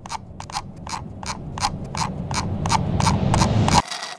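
Sharp, evenly spaced clicks, about three a second, over a low rumble that swells steadily louder and then cuts off abruptly near the end, leaving a faint hiss.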